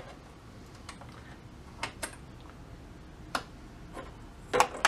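Sharp clicks of a tube tester's selector knobs and lever switches being set, about five spread over the few seconds, with the loudest pair close together near the end.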